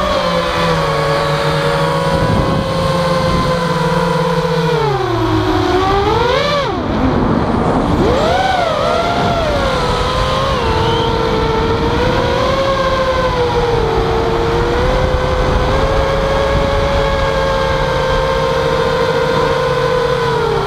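Mini quadcopter's motors and propellers whining steadily, recorded from its onboard camera. About five seconds in, the pitch sinks, then swoops up and down sharply before settling back to a steady whine.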